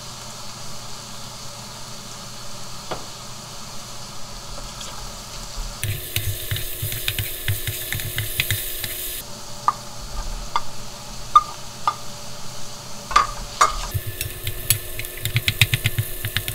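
Julienned potato strips sizzling in a nonstick wok while a wooden spoon stirs them, scraping and tapping the pan. There are two bouts of louder sizzling with rapid spoon strikes, about six seconds in and again near the end, with scattered clicks in between.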